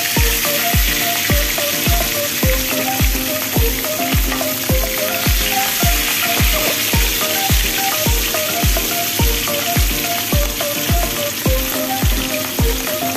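Small whole fish deep-frying in a pan of oil, a steady crackling sizzle, under background music with a steady beat.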